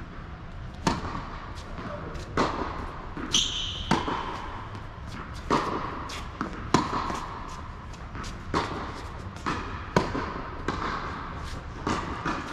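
Tennis ball struck by Yonex rackets and bouncing on a fast indoor hard court during a serve and rally: a sharp pop about every second and a half, ringing in a large hall. There is a brief high squeak about three seconds in.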